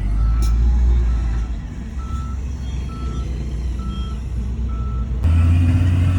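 Reversing alarm on a heavy earthmoving vehicle beeping steadily, about one beep a second, over the low drone of a diesel engine. The engine gets louder about five seconds in.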